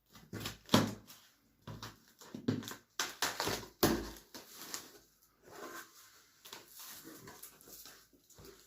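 Cardboard delivery box being handled and opened: irregular rustles, scrapes and knocks, with a sharp knock about a second in and a busier run of scraping and tearing around three to four seconds in.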